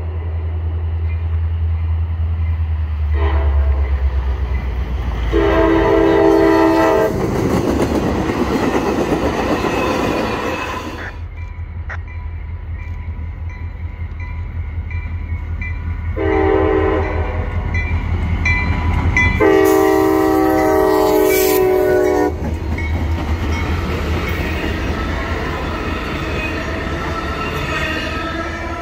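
CSX track geometry train's diesel locomotive sounding its multi-note air horn in two pairs of long blasts, with the locomotive's diesel engine running steadily underneath and the rumble of the train on the rails.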